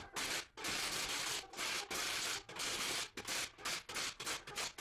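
Abrasive rubbing by hand, scrubbed back and forth in quick strokes, about two a second.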